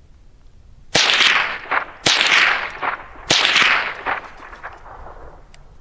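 Three shots from a Rock Island TM-22 .22 LR semi-automatic rifle, about a second apart. Each crack trails into a long echo off the surrounding hills.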